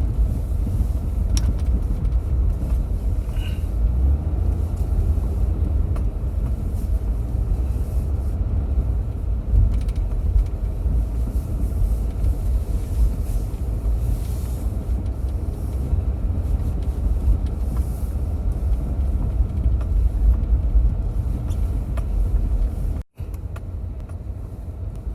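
Car driving: a steady low rumble of engine and road noise. It cuts out for an instant near the end.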